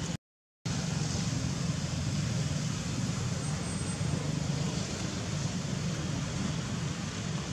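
Steady low rumble of outdoor background noise with a faint hiss above it. It cuts out completely for about half a second near the start. No animal calls stand out.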